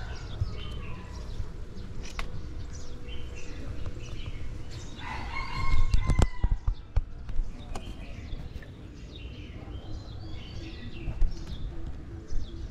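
Birds chirping over and over in short high calls, with one longer, louder call about five seconds in. A few sharp knocks around six seconds in and a steady low rumble of handling and wind on the microphone.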